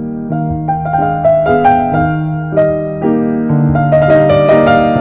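Keyboard music: a gentle piano-like melody over held bass notes that change every second or two.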